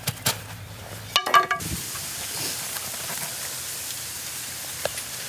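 Charcoal-filled cloth sleeve being pushed and worked into the end of a bamboo pipe: a few light clicks near the start, then soft, steady rustling of cloth against the bamboo.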